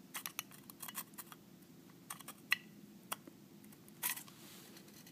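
Small clicks and taps of a headphone amplifier's circuit board being worked along the rails of its aluminium case, a quick run of clicks first, then single clicks, and a short scrape near the end.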